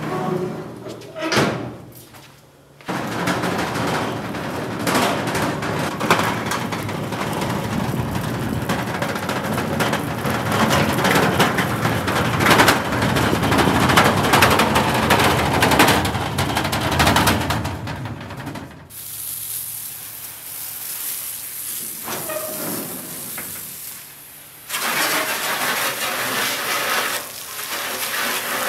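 The casters of a wheeled body stand rattle and clatter across concrete as a bare 1965 VW Beetle body shell is pushed along on it, for about fifteen seconds. Near the end comes a steady hiss of water from a hose rinsing out the body.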